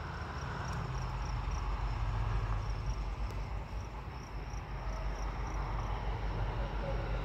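An insect chirping in a steady high-pitched pulse, about five chirps a second, over a low steady rumble from a diesel freight train still far off and approaching.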